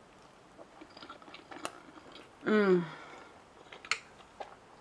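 A person chewing a mouthful of soft pancake, with small wet clicks of the mouth and fork. About halfway through comes a short hummed 'mmm' of enjoyment that falls in pitch.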